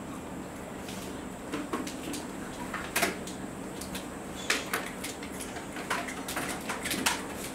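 Classroom room tone: a steady hum under scattered small clicks and knocks from pupils handling markers and mini whiteboards while they write their answers.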